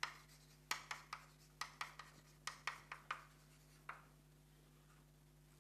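Chalk writing on a blackboard: a quick run of short taps and scrapes for about four seconds, then it stops, over a faint steady low hum.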